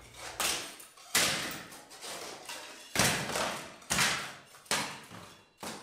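Loose three-coat lime plaster being pulled off a wall by hand, the separated top coat crumbling and falling in about six short scraping, crumbling rushes.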